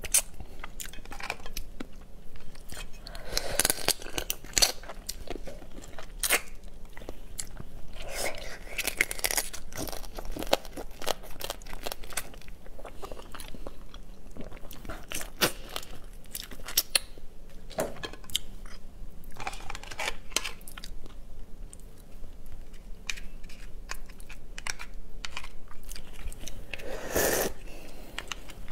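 A person eating marinated raw blue crab: crunching and biting through shell and legs, and chewing, with sharp cracks and clicks throughout. Louder crunches come about four seconds in, about nine seconds in, and near the end.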